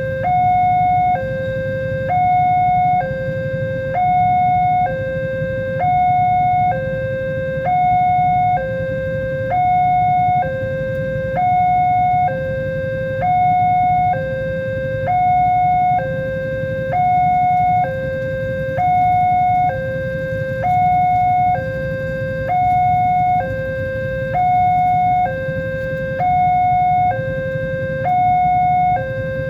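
Electronic railway level-crossing warning alarm sounding a two-tone signal: a lower and a higher tone alternate about once a second in a steady, unbroken cycle, the signal that a train is approaching and the barrier is closing. A steady low rumble runs beneath it.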